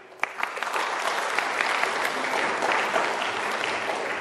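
Congregation applauding: a dense patter of many hands clapping that starts sharply about a quarter second in and holds steady.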